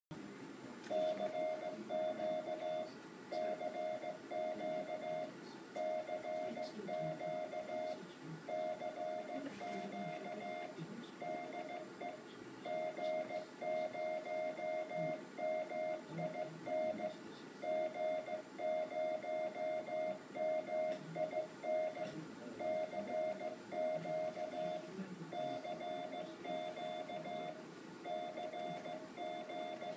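Morse code (CW) tone keyed in dots and dashes at one steady mid pitch, an amateur radio station sending a CQ call on the 500 kHz band. A low, uneven background noise runs underneath.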